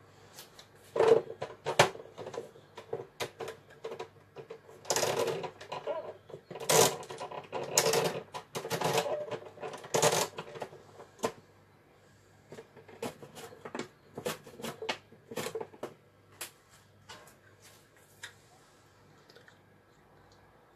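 Irregular clattering, clicking and rustling of a hard plastic kitchen container being handled on a worktop. The sharpest knocks come about a second in, with dense handling noise in the middle and only a few light clicks near the end.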